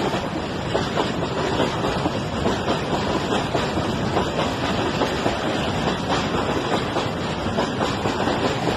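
Freight train of tank wagons rolling past close by: steady wheel-on-rail rolling noise with many small clicks and clanks from the wheels and couplings.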